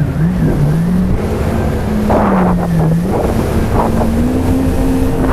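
Jet ski engine running, its pitch swinging up and down at first, then holding steady and stepping up a little near the end, with wind noise on the microphone.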